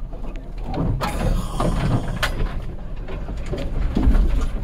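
Camper van creeping along a narrow forest track, heard from inside the cabin: a steady low rumble with irregular scratching and scraping from about a second in, typical of branches and brush dragging along the van's body.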